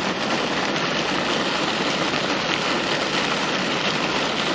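Steady, even hiss of water noise with a fine, grainy texture.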